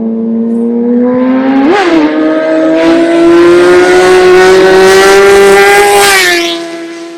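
2019 Kawasaki Ninja ZX-10R's inline-four through an M4 Tech1 slip-on exhaust, accelerating hard with its pitch climbing, with a brief rise and dip in pitch near two seconds in. About six seconds in, the pitch drops and the sound fades as the bike goes past.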